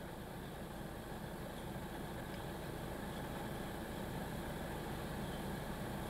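Faint, steady low rumble with a light hiss, slowly growing a little louder.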